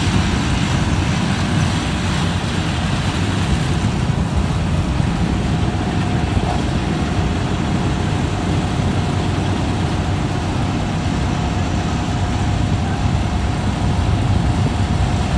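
Kartar 4000 combine harvester running steadily at close range while it unloads rice grain into a tractor trolley, with a tractor engine running alongside. A faint steady whine comes in about five seconds in.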